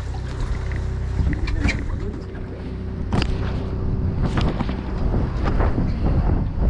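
Wind rumbling on a body-worn camera's microphone, with a faint steady tone, and a few sharp knocks and scrapes as a mesh landing net is handled against the boat's rail.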